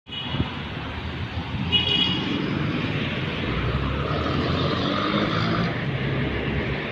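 Road traffic from a busy city street: vehicle engines running with a steady low rumble, and two short high tones, one at the start and one about two seconds in.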